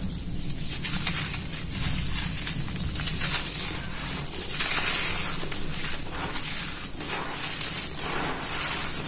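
Hands crushing and crumbling dry red dirt clumps and raking through loose gritty soil: a continuous dense crunching and crackling as grains and powder fall, swelling about halfway through and again near the end.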